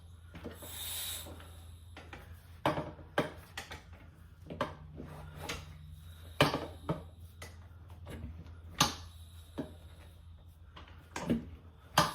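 Scattered knocks and clunks, about eight spread out, from working a Rabaconda motorcycle tire changer's bead breaker on a rear wheel, over a steady low hum.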